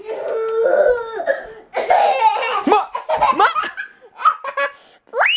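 Toddler laughing hard in repeated breathy bursts, ending in a high squeal that rises sharply in pitch.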